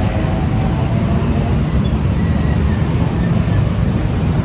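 Steady low rumble of a moving vehicle or road traffic, with no distinct events standing out.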